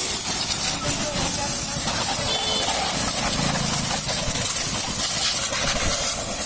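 High-pressure water spray: a pressure-washer jet hissing steadily against a motorcycle during its wash.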